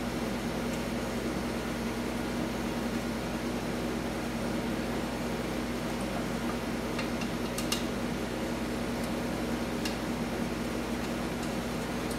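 Steady mechanical hum, like a fan, with a few light clicks of small parts being handled on a small engine about seven to eight seconds in and again near ten seconds.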